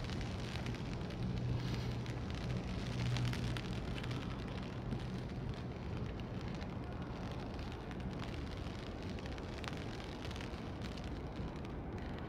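Steady rain falling, an even hiss with scattered light drop ticks. A low hum runs under it, strongest for the first few seconds and then fading.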